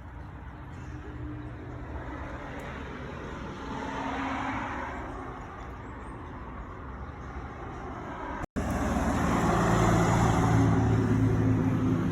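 Road traffic: a car passes, swelling and fading about four seconds in. After an abrupt cut, a vehicle's engine runs close by with a steady low hum, louder than before.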